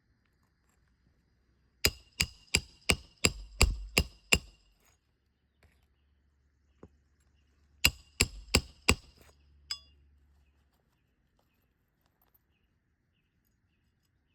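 Hammer blows on a roof snake driving roofing nails into a shingle: a quick run of about eight ringing metal strikes, then four more a few seconds later.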